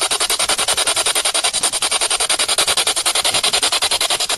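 Spirit box, a radio rapidly sweeping through stations and played through a small portable speaker, giving choppy bursts of radio static at about ten a second.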